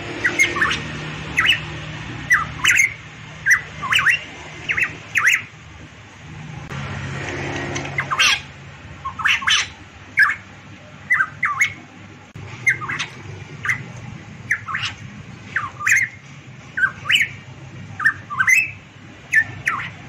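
Caged variable pitohui calling: a long run of short, sharp notes, one or two a second, each a quick sweep in pitch, with a brief lull about seven seconds in.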